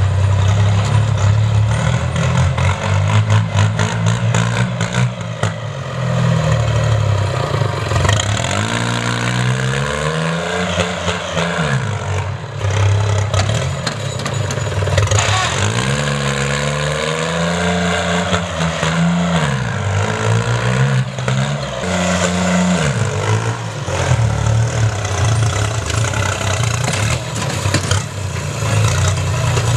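Sonalika DI 22 compact tractor's diesel engine running while working a field with a harrow; its pitch falls and rises again several times in the middle as the revs sag and recover.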